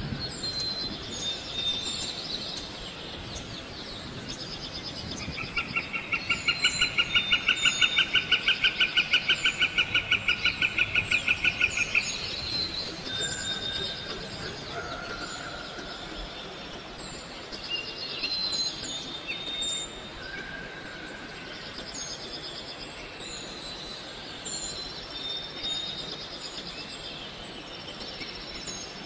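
Forest bird chorus: many short, high chirps and calls repeating throughout. From about five seconds in, a loud, rapidly pulsing trill runs for about seven seconds at roughly five pulses a second, then stops.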